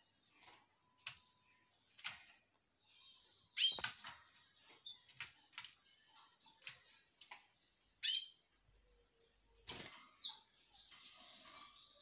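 Caged canaries giving scattered short chirps and calls, the loudest about four seconds in and again at eight, with a few sharp knocks and rustles from the birds moving about the wire cage.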